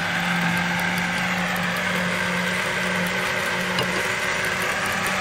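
Countertop blender running steadily, blending apple, banana and spinach with water into a juice.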